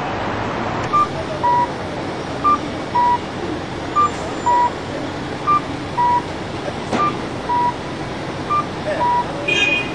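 A two-tone electronic chime, a short higher note followed by a longer lower note, repeating about every one and a half seconds from about a second in, over steady street and traffic noise.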